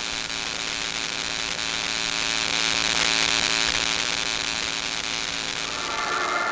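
Steady electronic static hiss over a low hum, swelling a little around the middle.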